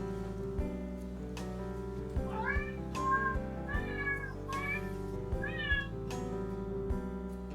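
Domestic cat meowing about five times in a row, short calls that bend up and down in pitch, over background music with a steady beat.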